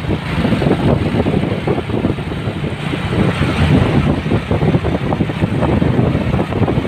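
Heavy MAN tractor unit's diesel engine running as it hauls a low-bed trailer at low speed, with a steady low rumble and wind buffeting the microphone.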